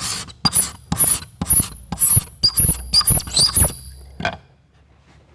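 Norton hand scraper blade drawn hard across a red oak floorboard in about ten quick strokes, taking shavings, many strokes with a thin high-pitched ring. The scraping stops about four seconds in.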